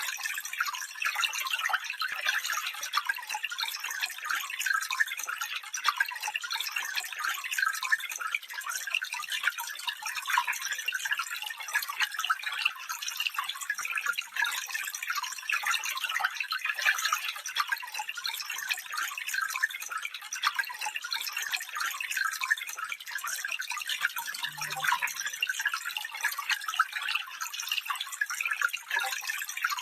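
Stream water flowing steadily: an even, fairly high-pitched rush of water full of quick little splashes and trickles, with no deep rumble.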